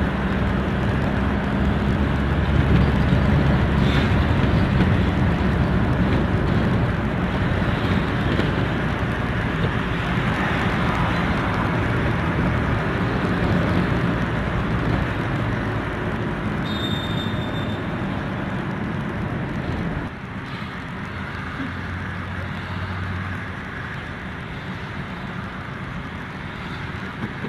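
Road and engine noise inside a moving car's cabin: a steady low rumble with tyre hiss, dropping in level about twenty seconds in. A short faint high beep sounds about seventeen seconds in.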